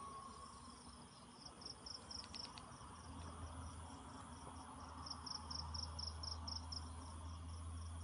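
Faint cricket chirping: runs of evenly spaced high pulses, about five a second, coming in two spells, one about one and a half seconds in and one from about five seconds in. A low steady hum lies underneath, with a few faint clicks about two seconds in.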